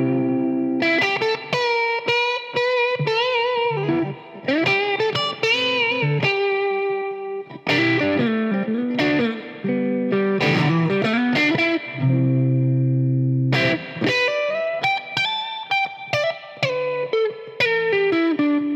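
Squier Telecaster Cabronita electric guitar played through an overdriven amp: a lead line of sustained single notes with wide vibrato and string bends, a low held chord about twelve seconds in, then quicker runs of notes.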